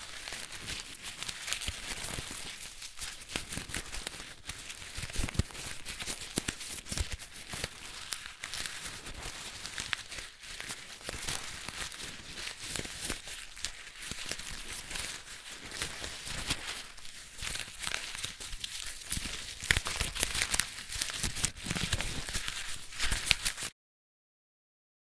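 Squared paper crinkling and crackling continuously with many small snaps, as a crumpled paper ball is unfolded and folded into an origami rose. It cuts off abruptly about a second before the end.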